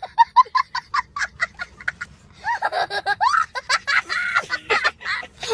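A young boy laughing hysterically in rapid, very high-pitched bursts, about five a second. A short break comes about two seconds in, then longer rising-and-falling squeals of laughter.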